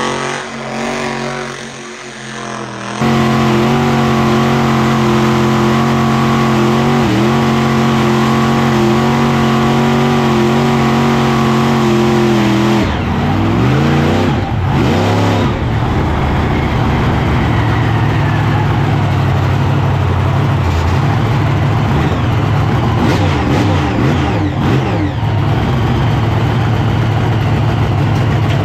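A large vehicle engine cuts in loudly about three seconds in and runs at a steady, high speed. Past the middle its pitch drops and rises several times as it is revved, then it runs on steadily at a lower pitch.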